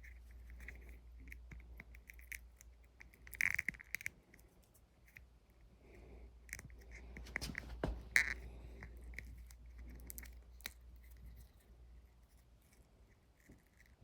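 Scattered small clicks, scrapes and snips of hand work on wood veneer, with louder clusters about three and a half seconds and eight seconds in, over a low steady hum.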